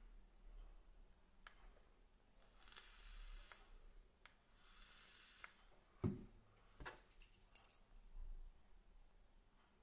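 Near-silent handling of a vape build: two soft hisses, then a knock about six seconds in as the e-liquid bottle is set down on the wooden desk, followed by a few light metallic clicks as a small tool is picked up and worked at the coil deck.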